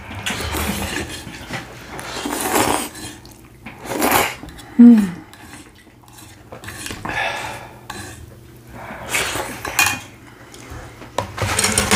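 Plate and fork clattering and scraping while the last of a plate of spicy noodles is picked up and eaten, with chewing and slurping in between. A short falling voice-like sound about five seconds in is the loudest moment.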